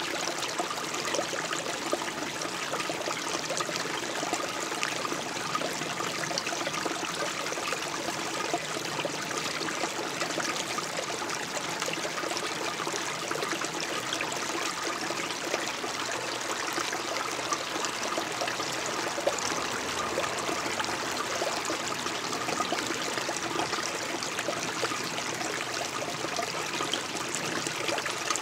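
Shallow stream trickling and splashing steadily over stones and down a small rocky step.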